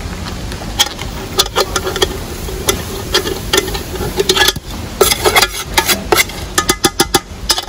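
Metal spoon stirring in a large aluminium pot of curry liquid, clinking and scraping against the pot's sides in irregular knocks that come in quicker runs near the end.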